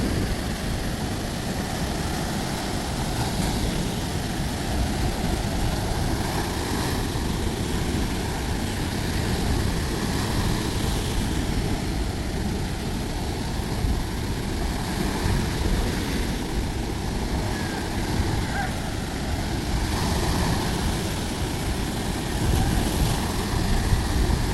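Sea surf washing onto a beach: a steady rush of waves with a low rumble underneath, swelling a little every few seconds.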